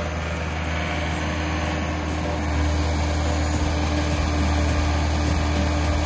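John Deere 317 skid steer's diesel engine running steadily, getting a little louder about two and a half seconds in.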